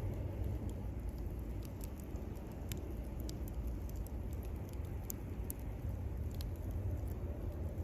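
Wood fire (bonfire) crackling: scattered sharp pops and snaps at irregular intervals over a steady low rumble.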